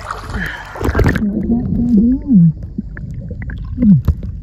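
Sea water lapping and splashing at a phone camera held at the surface, then the muffled, gurgling sound of the phone dipped underwater, with a low wobbling tone that rises and falls and a short falling tone near the end.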